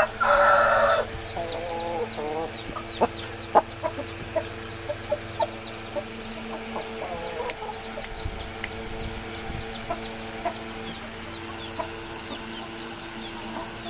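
Thai Aseel rooster ending a crow in the first second, then giving a few low clucks. Faint short high chirps repeat throughout over a steady hum.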